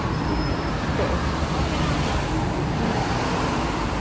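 Steady road traffic noise from a busy multi-lane road below: cars and buses running past in a continuous rumble.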